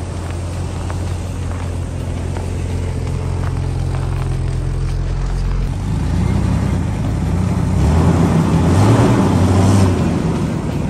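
Vehicle engine running with road noise as it drives slowly along a snowy road. A steady low hum swells into a louder rumble and hiss about two-thirds of the way through, then eases back just before the end.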